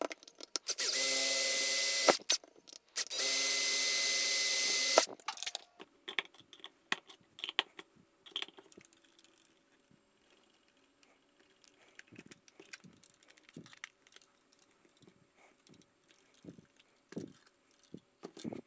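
DeWalt cordless drill running in two short bursts, about a second and two seconds long, boring small holes in a metal bracket. After that come soft scattered clicks and knocks as small parts and a screwdriver are handled.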